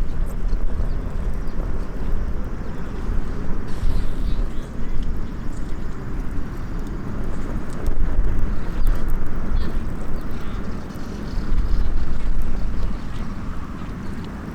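Wind buffeting the microphone, a steady deep rumble with a wash of noise behind it, and a few faint ticks from the small wood fire.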